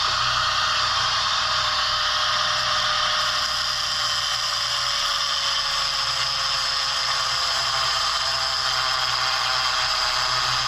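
Welding arc crackling and hissing steadily as a bead is run on thin steel. It starts abruptly at the outset and holds evenly throughout.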